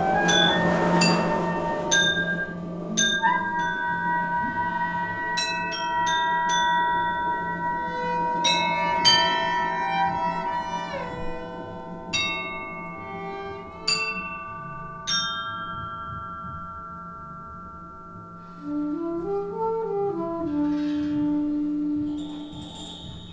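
Live acoustic band playing a slow, quiet passage: struck notes that ring on and overlap, growing sparser, then a short soft melody that rises and falls near the end.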